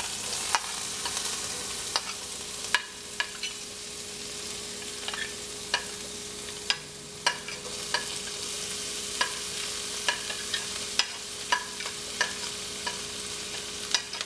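Diced bell peppers sizzling in hot melted butter in a cast-iron skillet, a steady frying hiss, with sharp clicks about once a second as a metal spoon scrapes and taps the peppers off a plate into the pan.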